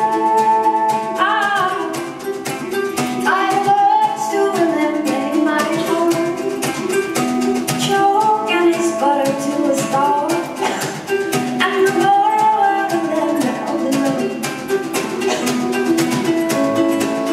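Live band music: a ukulele strummed in a quick steady rhythm over sustained keyboard chords, with a woman's voice singing the melody in phrases.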